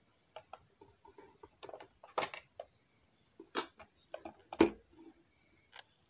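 Hard plastic clicks and knocks as the battery cover of a Casio TV-770 pocket LCD television is worked off and the set is handled on a wooden tabletop. The loudest is a duller, heavier knock about two-thirds of the way through.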